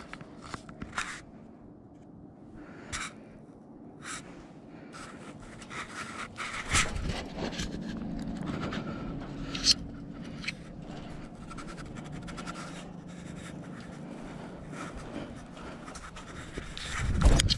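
Scuffing footsteps and scraping close to the microphone, with heavy breathing, while a person walks across a construction site; a low steady hum comes in through the middle, and a loud low thump lands near the end.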